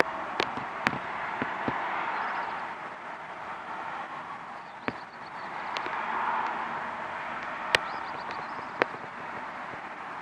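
Street traffic: a steady hum of passing vehicles that swells twice and fades, with several sharp clicks. A bird sings faint, quick high trills a few times over it.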